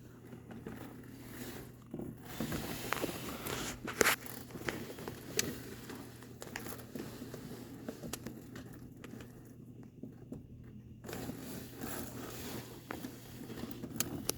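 Faint scattered clicks and crackles over a steady low hum, with a few sharper clicks near the start and middle.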